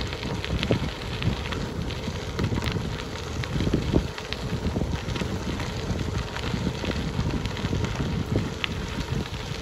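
Bicycle tyres rolling over a gravel trail, a steady crunch with a fast, irregular crackle of small stones, under low rumbling wind noise on the microphone from riding speed.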